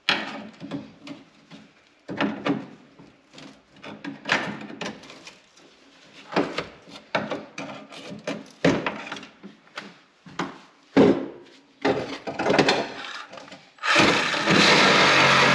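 Irregular knocks and clunks of metal parts and tools being handled during car floor-pan repair work. Near the end a loud, steady rushing noise starts.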